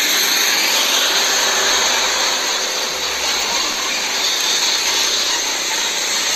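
Isuzu tanker truck driving slowly past in street traffic: a steady hiss of engine and road noise, with a low engine rumble coming in about a second in.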